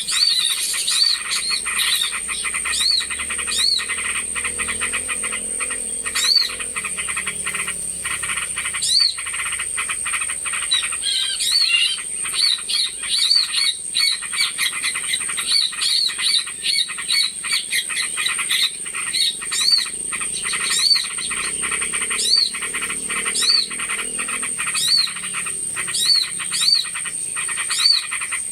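Bird-lure recording of many small birds calling at once: a dense, noisy chatter with short, high, arched chirps repeating about once or twice a second, crowding together around the middle. A thin steady high-pitched whine runs underneath.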